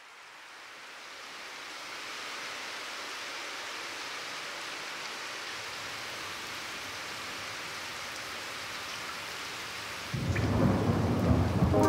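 Rain sound effect played over a concert hall's speakers: a steady hiss of rain that fades in over the first couple of seconds. About ten seconds in, a deep rumble comes in suddenly and loudly, and music begins at the very end.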